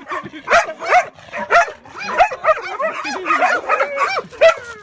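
Dog barking excitedly in a quick run of short barks and yips, about two or three a second. It is a guard dog's protective barking at someone staging a mock attack on its owner.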